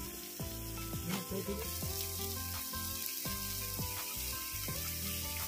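Masala-coated katla fish pieces frying in oil on a tawa, sizzling steadily.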